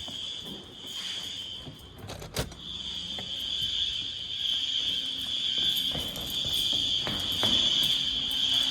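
School fire alarm sounding a steady, high-pitched tone during a test. It comes in strongly about two and a half seconds in, just after a sharp knock, and holds steady.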